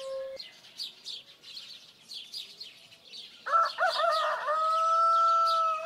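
Small birds chirping over and over, and about halfway through a rooster crowing once, its call ending in a long held note: a morning sound effect opening a dawn scene. A held flute note cuts off just at the start.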